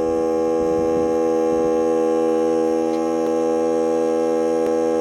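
Small portable air compressor running steadily with an even, pitched hum as it inflates a car tire from flat.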